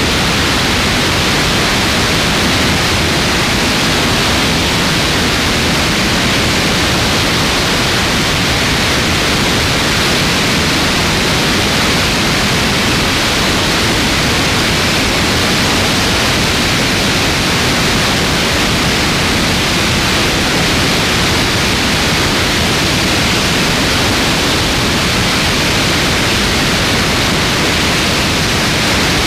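Steady, loud rush of wind noise: airflow buffeting a camera mounted on the wing of a light aircraft in flight.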